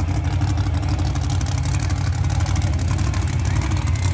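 Monster truck engine running steadily, a deep, even drone.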